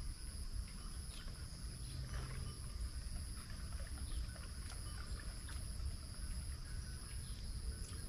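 Steady outdoor background: a low rumble under a continuous high-pitched whine, with a few faint clicks.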